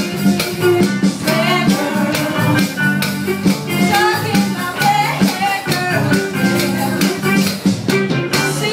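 Music with a steady beat over a bass line.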